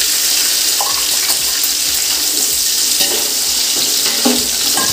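Sliced onions sizzling loudly in hot oil and ghee in a large biryani pot: a steady, hissing fry just after the onions go in.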